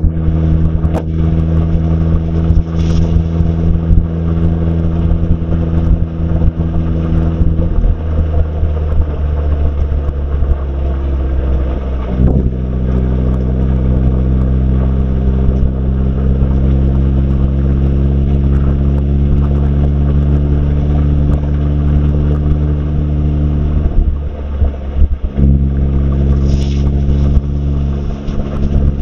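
Mazda MX-5 990S's 1.5-litre four-cylinder engine heard from inside the cabin while driving, with road noise underneath. It holds a steady note that shifts about eight seconds in and rises about twelve seconds in. The note drops away for a moment near the end and picks up again, like a gear change.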